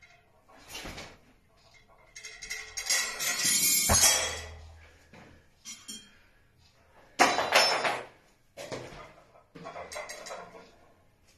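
Iron weight plates and the steel hub-lift pin clanking and clinking as they are handled, in several separate bursts, with a long loud clatter ending in a sharp heavy knock about four seconds in.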